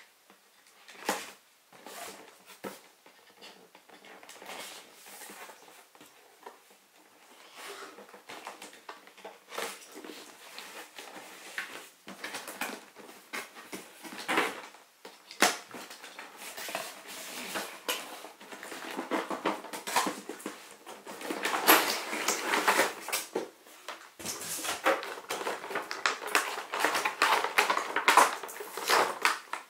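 Unboxing sounds: a box cutter slitting the tape on a cardboard box, then cardboard and a clear plastic packaging tray being handled and pulled out. It is a run of irregular scrapes, rustles and clicks, sparse at first and busier and louder in the second half.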